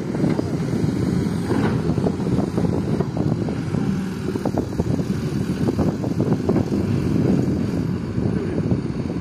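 Hitachi excavator's diesel engine running steadily, mixed with gusty wind buffeting the microphone.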